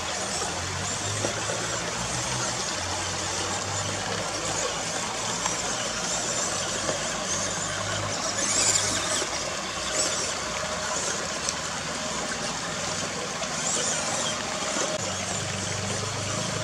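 Small electric 1:18 scale RC crawler truck (EazyRC Toyota Land Cruiser, plastic axle and transmission gears) whining as its motor and gears drive it through a shallow rocky stream; the drive hum comes and goes as the throttle is worked, over the rush of running water.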